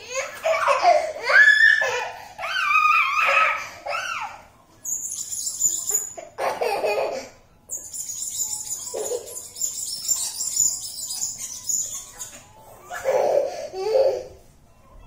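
A toddler squealing and giggling in high-pitched squeaks that slide up and down. There is a run of squeals over the first four seconds, then shorter ones near the middle and again near the end.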